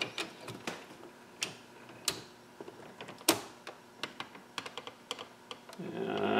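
Scattered light clicks and taps of the plastic top cover of a Bang & Olufsen Beocenter 9000 being lifted off the unit, with the loudest knock about three seconds in.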